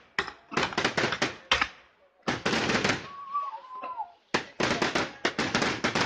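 Fireworks going off in three rapid volleys of crackling bangs, the last starting about four seconds in, with faint whistles in the lull around the middle.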